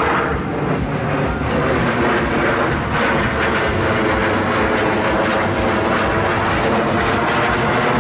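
Blue Angels aircraft engines running loudly and steadily, a constant droning roar with a held engine tone.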